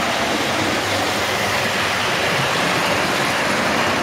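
OO-gauge model train running on the layout's track: the locomotive Blackmoor Vale, a Bulleid West Country class model, hauling Bachmann BR Mk1 coaches and a parcels van. It makes a steady rumble of motor and wheels on rail that grows a little louder as the coaches pass close.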